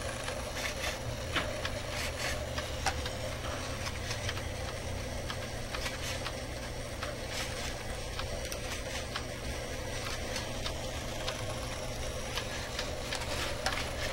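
A home-built wheeled robot's electric motors and gears whirring as it shifts its head and body, with many irregular clicks and rattles over a steady low hum.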